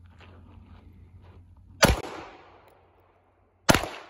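Two 9mm pistol shots from a Glock 34 Gen5, a little under two seconds apart, each trailing off in a short echo.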